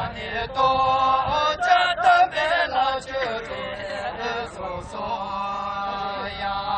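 A group of Bhutanese archers' men's voices chanting together, with long held notes that bend and change pitch.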